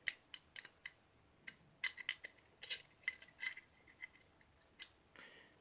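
Small steel parts of a Norinco NP34 pistol clicking and clinking as the trigger and trigger bar are worked back into the frame. There are a dozen or so sharp, irregular clicks with a few short scrapes.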